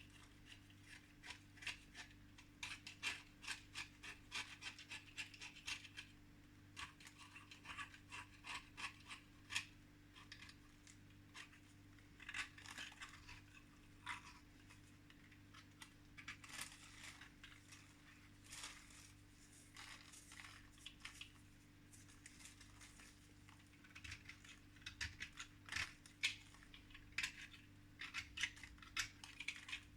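Irregular scratching and small clicks and taps at close range, in clusters with short pauses between them. A steady low electrical hum runs underneath.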